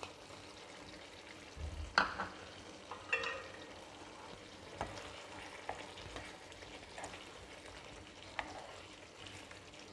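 Pumpkin sabzi sizzling faintly in a non-stick frying pan, with a few light taps and scrapes of a spatula against the pan as it is stirred.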